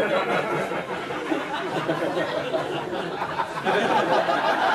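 Audience laughing at a stand-up comedian's punchline, a dense crowd laugh that swells louder a little over halfway through.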